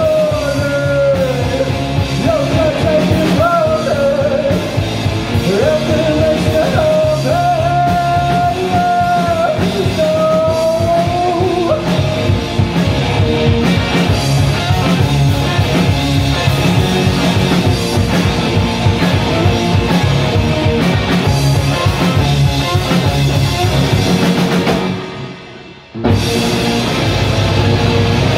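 Live rock band playing loud, electric guitar over a drum kit, with a bending melody line over roughly the first twelve seconds. About 25 seconds in the band stops dead for a second and a half, then crashes back in together.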